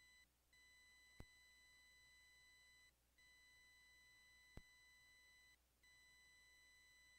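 Near silence with a faint steady electronic tone, a high whine that drops out briefly about every two and a half seconds, and a faint tick about every three seconds.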